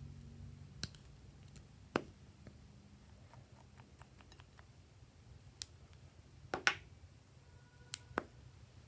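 Sharp clicks of small hard-plastic toy marker caps being pulled off and pressed back on, a handful spaced a second or more apart with the loudest double click about two-thirds of the way through.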